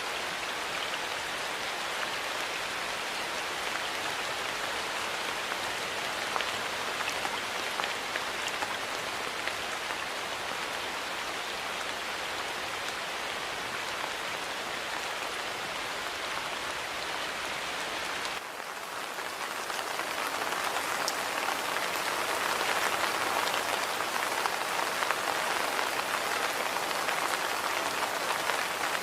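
Steady rain falling, a dense even hiss of many drops. About eighteen seconds in the sound changes abruptly, dipping briefly, then grows louder and fuller toward the end.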